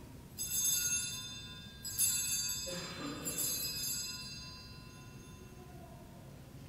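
Altar bells rung three times at the elevation of the consecrated host, each ring a bright cluster of several high tones that fades out before the next.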